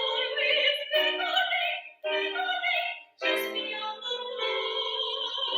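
A soprano singing in classical operatic style with vibrato, with piano accompaniment. The sung phrases break off briefly about two and three seconds in.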